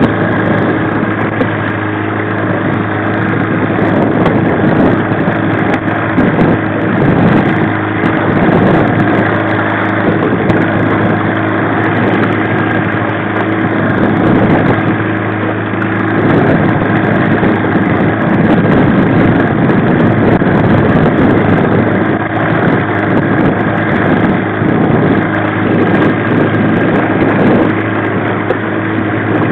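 1995 15 hp Mariner two-stroke outboard motor running steadily at slow trolling speed, over a wash of wind and water.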